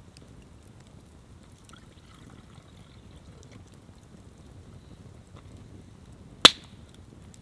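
Small campfire crackling softly, with one sharp, loud click about six and a half seconds in.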